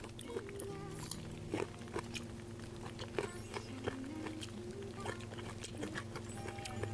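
Close-miked biting and chewing of crunchy fresh fruit: irregular sharp crunches and wet chewing, over soft background music.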